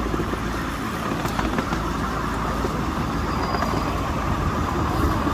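Ridable miniature railway train running along the track, heard from a passenger carriage: a steady rumble of the wheels on the rails with a few faint clicks.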